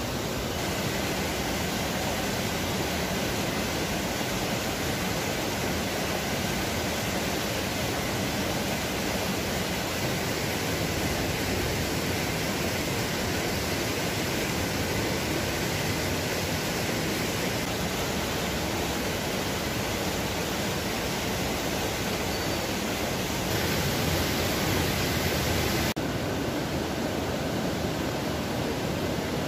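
Steady rush of a rocky mountain stream or small waterfall: an even, unbroken wash of water noise, a little louder and brighter for a couple of seconds near the end.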